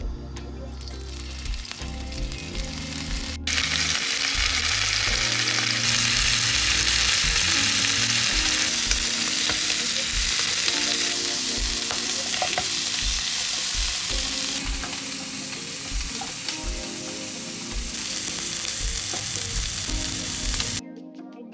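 Shrimp frying in hot oil in a nonstick pan, a loud steady sizzle as they are stirred and turned with a wooden spatula. The sizzle gets louder about three seconds in and cuts off about a second before the end, with background music with a steady beat underneath.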